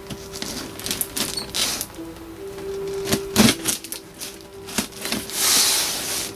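Cardboard shipping box being handled and turned over on a tabletop: scattered knocks and scrapes of cardboard, a sharper knock about three and a half seconds in, and a longer scraping rush near the end.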